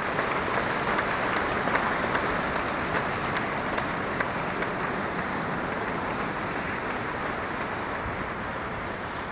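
Sustained audience applause: many hands clapping in a steady, dense patter that eases off slightly near the end.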